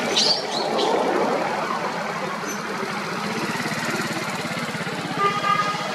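A baby long-tailed macaque gives a few short, high-pitched squealing cries in the first second, over a steady background hum. Another brief call is heard near the end.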